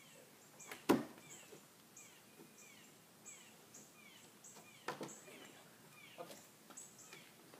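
Birds chirping over and over, short falling chirps about twice a second. A sharp knock about a second in, and fainter knocks near five and six seconds, come from the kayak's tie-down strap and rack being handled.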